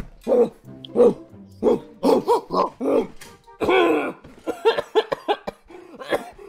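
Human voice imitating a dog: a run of short, irregular woofs and barks, with one longer drawn-out call a little past halfway, over background music.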